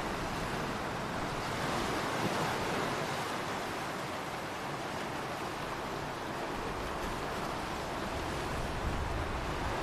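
Ocean waves washing in a steady surf, swelling gently and easing off.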